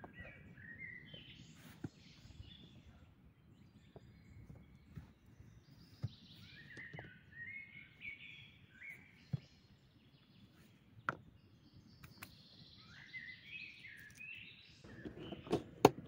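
Small birds chirping and singing in short bursts of phrases, with scattered sharp clacks of rocks knocked against each other as stones are stacked into a fire ring; a louder clatter with a few sharp knocks comes near the end.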